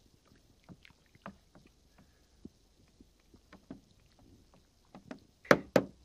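Wooden spoon stirring water in a plastic tub, with small splashes and drips. Near the end come two sharp knocks as the spoon is lifted out and struck against the tub.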